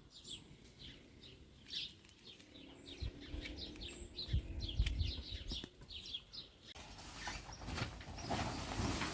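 Small birds chirping rapidly and repeatedly in short, high notes. A low rumble comes in midway, and a loud rustling hiss covers the last two seconds.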